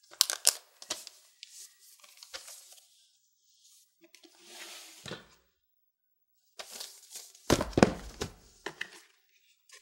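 Cardboard and paper packaging being handled as a laptop is lifted out of its box: rustling and crinkling of the paper wrap with small knocks and clicks. The loudest part is a cluster of bumps about three quarters of the way in, as the laptop and box are set down on the desk.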